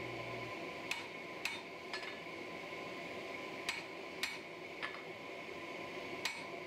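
Hand hammer striking a hot san mai steel billet on an anvil, drawing it out flat. There are seven sharp blows with a short metallic ring: three about half a second apart, three more in the middle, and a single one near the end, over a steady hum.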